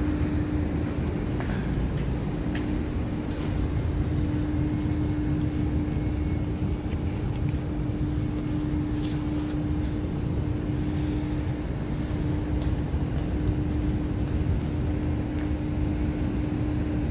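Steady low rumble with a steady hum, which fades out about a second and a half in and returns a few seconds later, with a few faint ticks. It is the background of an underground station platform with an EMU3000 electric multiple unit standing at it.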